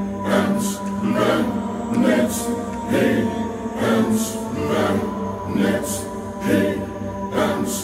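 Multitracked gothic choir vocals, layered and double-tracked, singing a chant-like passage in a steady pulse of roughly one stress a second over sustained low notes, played back from the recording session.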